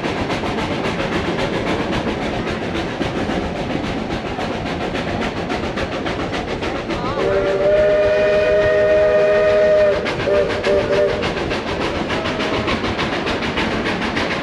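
A passenger train running along, its cars rumbling and rattling steadily. About seven seconds in, the locomotive's chord whistle sounds one long blast of about three seconds, then three short toots.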